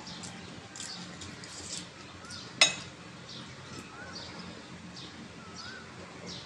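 Sipping fuchka water (pani) from a small glass bowl, with small wet mouth clicks and squeaks, and one sharp glass clink about two and a half seconds in. Faint chirps run behind.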